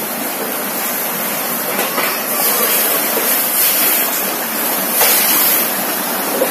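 Fast-flowing brown floodwater from a swollen river rushing over a submerged path and around metal railings: a steady rushing of water.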